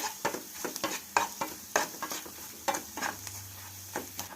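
Grated ginger and jaggery frying into a thick paste in ghee in a pan, with a low sizzle, while a utensil stirs and scrapes through it in short irregular strokes about two or three a second.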